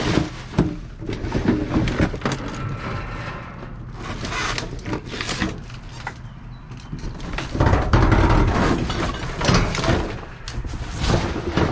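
Rummaging through junk in a dumpster: objects knocking, scraping and shifting at irregular moments, with a louder stretch of clattering and rustling about eight seconds in.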